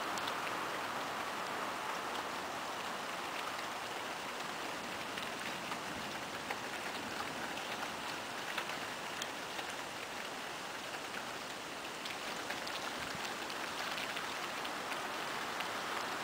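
Steady rain falling: an even hiss with scattered individual drops tapping.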